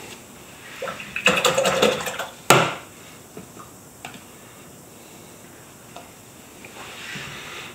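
Paintbrush rattled and swished in a small cup of rinse water, clinking against the cup, then one sharp tap on the rim. Faint light handling noises follow.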